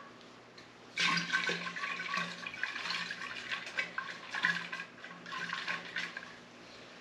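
Mead must of honey and cold brew coffee being poured into a spherical fermenter, a splashing, gurgling stream that starts suddenly about a second in and eases off near the end.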